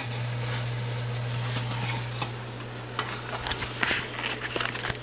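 Ground beef in a pot of oil, only beginning to sizzle faintly under a steady low hum, with scattered clicks and scrapes of a spatula stirring it in the second half.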